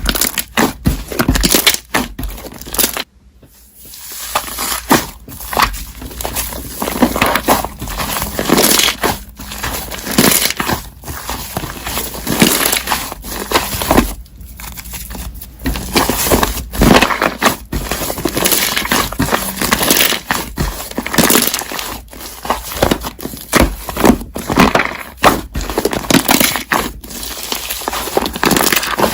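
Slime being squeezed and pressed by hand, a dense, irregular run of sticky clicks and pops, with short lulls about three seconds in and again midway.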